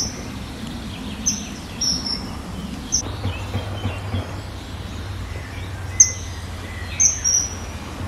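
Small birds chirping outdoors: short, sharp, high chirps, a few at a time and a few seconds apart, over a steady low hum.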